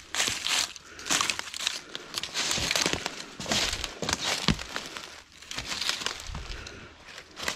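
Footsteps crunching and rustling through dry fallen leaves and twigs on a forest floor, a crunch with each step, roughly one a second.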